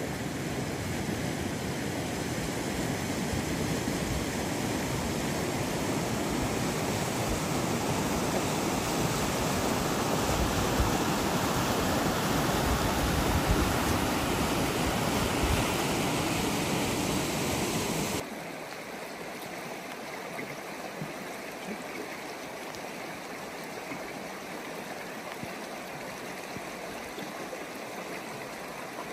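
River water rushing over rapids as a steady, full rushing noise. About two-thirds of the way through, it drops abruptly to a quieter rush of flowing water.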